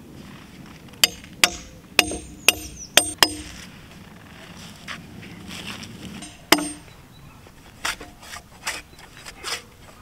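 Metal debarking tool striking a robinia (black locust) beam to strip its bark: a quick run of about six sharp knocks with a brief metallic ring, one more a few seconds later, then softer repeated strokes near the end.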